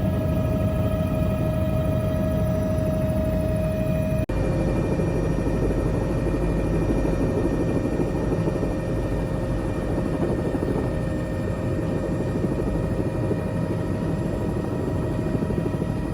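Helicopter in flight heard from inside the cabin: a loud, steady drone of rotor and engine noise with a constant whine above it. About four seconds in, the sound changes abruptly and the whine drops slightly in pitch, then runs on steady.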